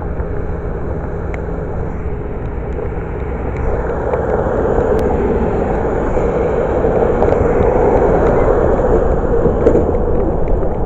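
Steady rushing road noise from riding a bicycle on wet pavement, slowly growing louder.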